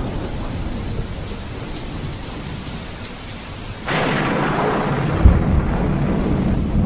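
Thunderstorm with rain falling: a low thunder rumble fades away, then about four seconds in a sudden loud thunderclap breaks and keeps rumbling, with a sharp crack a second or so later.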